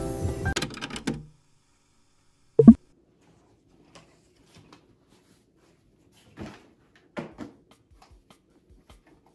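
Background music that ends about a second in, then a single loud thump. After it come a few faint knocks and rustles as a person moves about at a desk and handles a bag.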